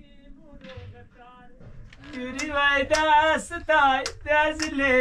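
Singing begins about two seconds in: a voice holding long, wavering notes over a regular beat, after a faint voice at the start.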